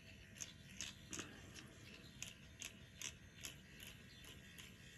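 Electric microneedling pen running faintly as it is worked over facial skin, with light clicks about twice a second over a low motor hum.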